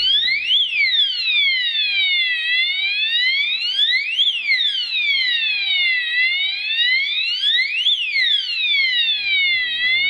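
Addressable fire alarm sounder wailing, its siren tone sweeping slowly up and down, each rise and each fall taking a little under two seconds. It is sounding the fire alarm signal, set off again by the control panel's resound command.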